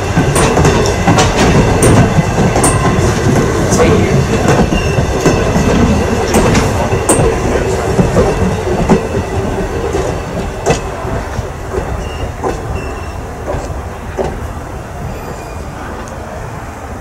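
Passenger coaches rolling past at close range: wheels clacking over the rail joints with short, high flange squeals. The sound fades over the last several seconds as the rear car goes by.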